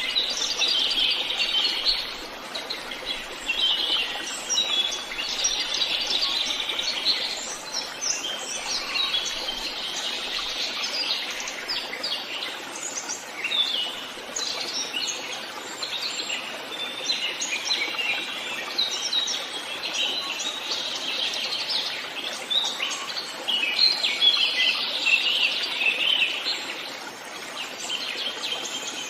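Forest birds singing: several birds at once in a dense chorus of quick high chirps and trills, with no gap.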